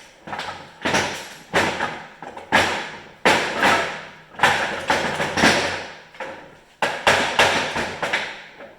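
A run of heavy knocks and clanks, about a dozen, irregularly spaced and each fading out quickly, as metal parts of a Polaris 680 snowmobile engine are knocked apart in a hurried teardown.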